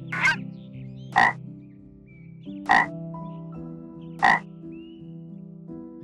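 A frog croaking: short, sharp croaks about every second and a half, over soft sustained background music.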